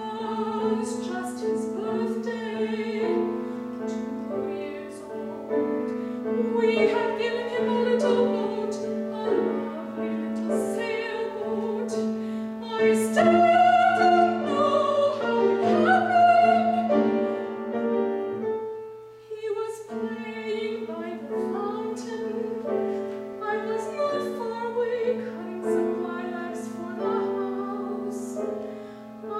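Operatic singing with vibrato over piano accompaniment, loudest around the middle, with a brief lull about two-thirds of the way through.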